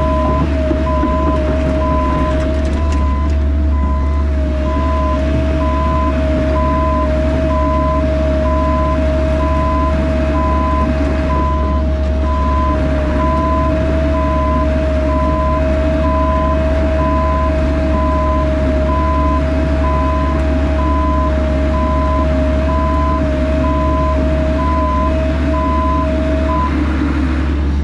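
Bobcat E85 excavator's travel alarm beeping about once a second while the machine moves on the trailer, over the steady run of its diesel engine and a constant high whine; the beeping and whine stop about a second before the end.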